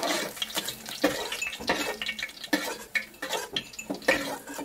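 A spatula scraping and clinking against a karahi and a steel bowl as fried okra is lifted out of the hot oil, in a run of irregular knocks and scrapes over a light sizzle.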